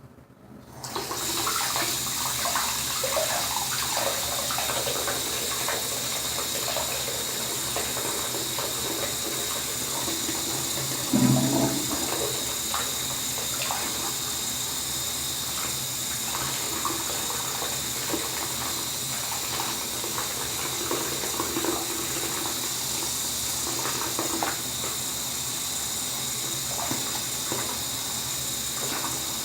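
Water running steadily from a tap, switched on about a second in, with scattered light knocks and a louder knock about 11 seconds in.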